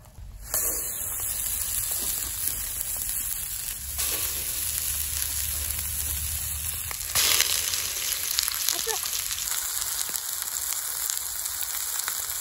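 Burger patties sizzling in hot oil in a new iron frying pan over charcoal; the sizzle starts suddenly about half a second in and gets louder about seven seconds in.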